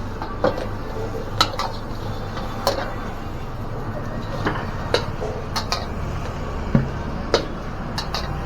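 A metal spatula clanking against a pan while fried rice is stirred and tossed: sharp, irregular strikes about every half second to a second, over a steady low rumble.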